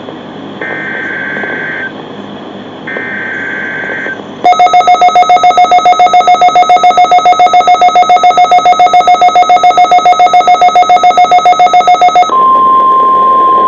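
Emergency Alert System SAME data bursts: two short screeching bursts of digital header, each about a second long. Then a loud buzzing alarm tone pulsing about six times a second for nearly eight seconds. Near the end this gives way to a single steady 1050 Hz NOAA Weather Radio warning tone.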